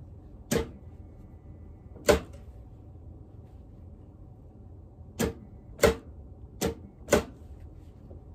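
Six sharp clicks at irregular intervals, the last four coming close together, over a low steady background hum.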